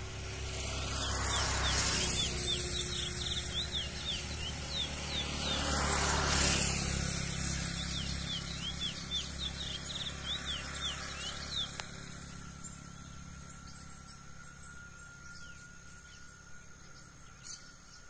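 Chestnut-bellied seed finch (curió) singing its wild 'mateiro' song: two runs of quick, sweeping chirped notes, the second longer, fading out about two-thirds of the way through. Rushing noise swells twice under the first half.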